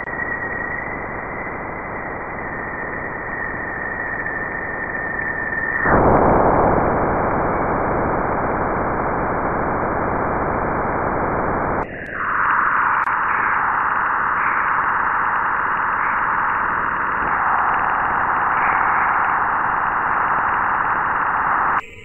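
Jupiter's 'sound': electromagnetic emissions recorded in space and converted to audio, heard as a dense, static-like hiss with a steady high tone over it. About six seconds in the tone stops and the hiss gets louder and fuller; about halfway through it changes to a brighter, higher hiss.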